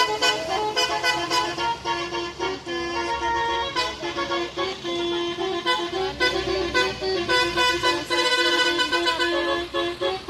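Tour bus's basuri (telolet) musical horn playing a tune: a run of loud pitched notes that keep changing, over the noise of passing traffic.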